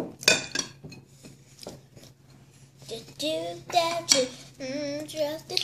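A few light taps in the first second, then from about three seconds in a young child's voice sings or sing-songs in high, drawn-out notes.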